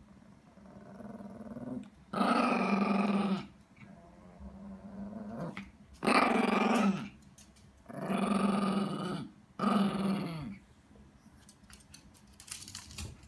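Yorkshire terrier making demanding growly 'gau-gau' noises: four loud drawn-out growl-barks about a second each, with quieter, swelling grumbles in between.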